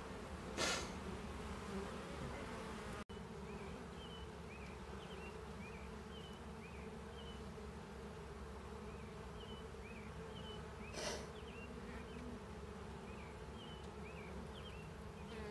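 A mass of honeybees buzzing steadily, a crowded colony on frames lifted out of the hive. Two brief handling noises, one near the start and one about two-thirds of the way in, and faint high chirps in the background.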